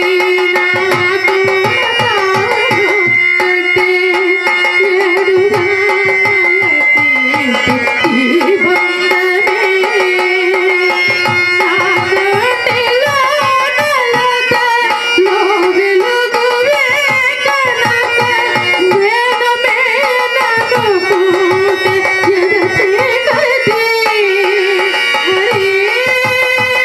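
A woman singing a Telugu stage-drama song with a gliding, ornamented melody, accompanied by harmonium and a hand drum keeping a steady rhythm.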